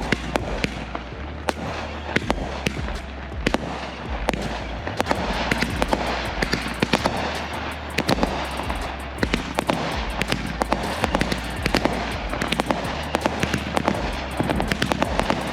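Consumer fireworks going off in a dense, continuous barrage: many sharp reports a second over a bed of crackling.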